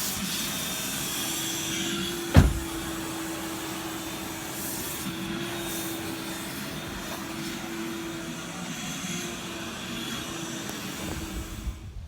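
Vacuum cleaner running with a steady hum, cutting off suddenly near the end. One sharp knock a couple of seconds in.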